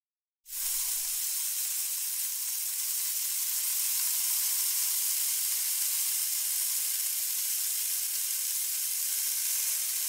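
A steady, high-pitched hiss that starts abruptly about half a second in and holds at an even level.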